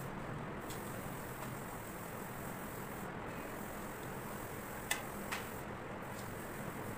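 Steady background hiss with two sharp clicks about half a second apart, roughly five seconds in, from a ceramic tile being handled against the tiled floor.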